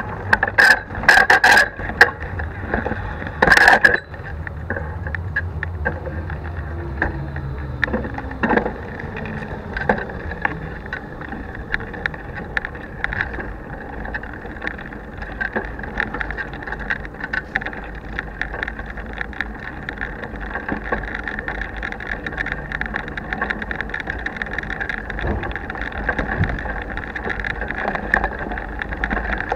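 A bicycle being ridden, picked up by a handlebar-mounted action camera with no protective housing: a steady rattle and rumble of the bike over the paving, with a run of loud knocks in the first four seconds.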